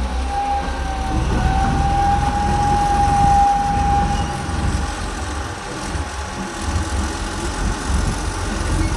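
Bulldozer working, its diesel engine running with a steady low rumble and a high, steady whine over the first four seconds.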